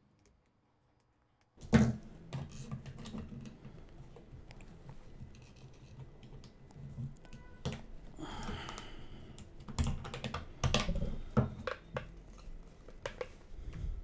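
Hands fitting the cap of a 3D-printed plastic case onto its base and pressing it shut. After about a second and a half of near silence comes one sharp click, then a run of plastic clicks and knocks with a short scrape a little past the middle, as the cap's locks are pushed into their slots.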